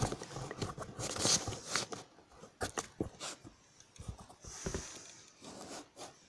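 Paper pages of a book being handled by hand: irregular rustles and light taps as the book is shifted and the page smoothed flat.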